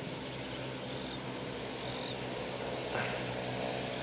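Steady outdoor background hiss with a few faint, short high chirps, and a single click about three seconds in.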